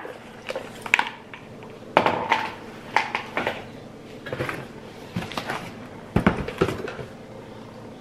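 Boxes and packaging being handled and set down: scattered knocks, taps and rustles, with a louder thump about six seconds in.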